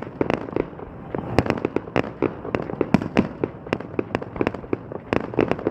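Fireworks display: sharp bangs and pops of bursting shells in quick, irregular succession, several a second.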